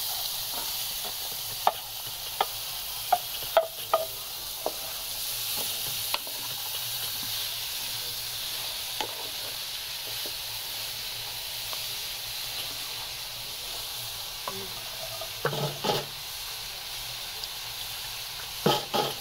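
Chopped green vegetables sizzling as they fry in an aluminium pan, with sharp knocks and scrapes of a wooden spatula stirring them against the pan. The knocks come often in the first few seconds and louder twice near the end.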